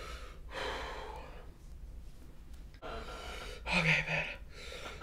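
A man breathing hard through his mouth against the burn of spicy ramen: two long, noisy breaths, the second ending in a short groan about four seconds in.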